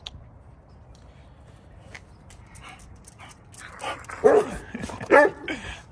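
A dog vocalizing up close: softer whimpers, then two loud, short barking whines with a wavering pitch about four and five seconds in.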